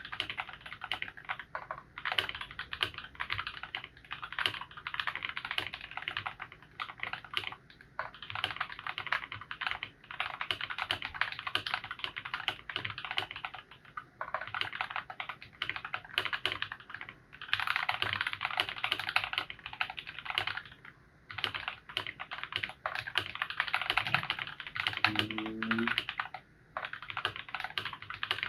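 Continuous fast typing on a mechanical keyboard with Feker Holy Panda tactile switches, lubed with Krytox 205g0 and filmed: dense key clacks running in stretches, with a few short pauses.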